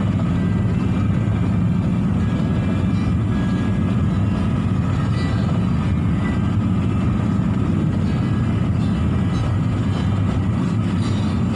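Steady road and engine noise heard from inside a moving vehicle, a constant low rumble with no change in pace.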